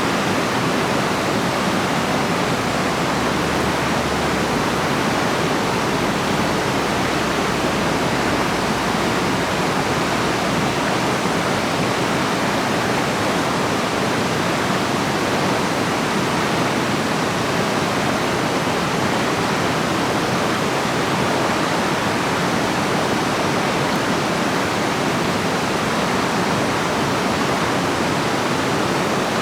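Flowing water rushing steadily, an even unbroken wash of sound with no change in level.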